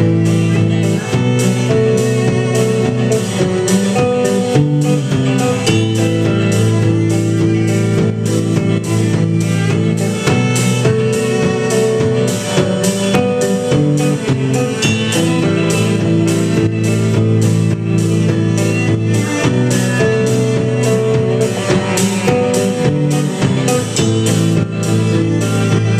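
Live band playing an instrumental passage: strummed acoustic guitar over electric bass guitar and cello, with a steady strummed beat.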